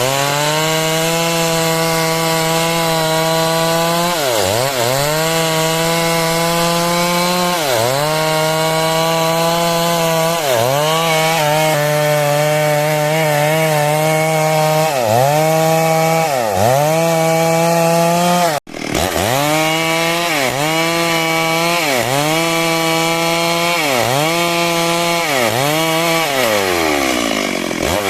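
Stihl MS 382 two-stroke chainsaw running at high revs while sawing a log into a square beam. The revs drop briefly and climb back every two seconds or so. The sound cuts out for an instant about two-thirds of the way through.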